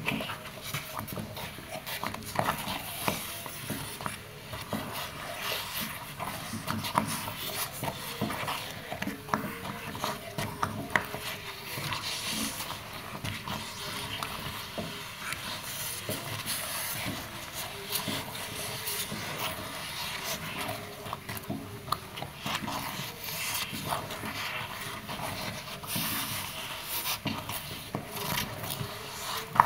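Spatula stirring a thick, sticky sago-starch dough in a non-stick pot: irregular wet squelches and smacks as the dough folds over, with the spatula scraping the pot.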